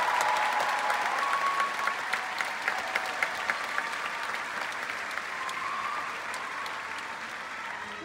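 Concert-hall audience applauding, the clapping slowly dying down, with a few single claps standing out in the middle.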